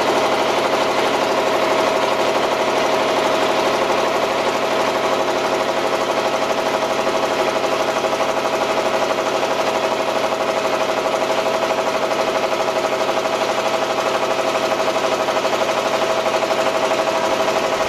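Small wooden lake boat's engine running steadily: a fast, even chugging with a steady mid-pitched hum.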